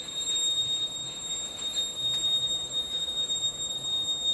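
Vertical turning lathe running, with a steady high-pitched whine over a bed of machining noise and a few faint ticks.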